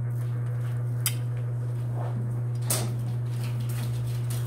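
Steady electric hum of a Pegasus industrial overlock machine's motor running idle, not stitching. Two sharp light clicks, about a second in and just under three seconds in, come from hands handling the machine and fabric at the presser foot.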